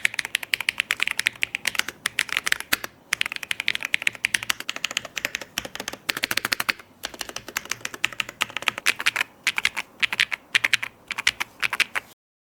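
Fast typing on a Gateron GT60 Pro magnetic-switch keyboard: a dense run of key clacks with a few short pauses. It stops abruptly near the end.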